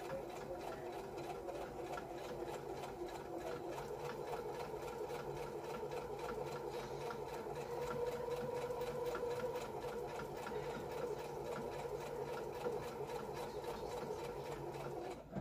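Electric domestic sewing machine running steadily, its motor whirring and the needle stitching at a rapid, even rate through fabric; it stops abruptly near the end.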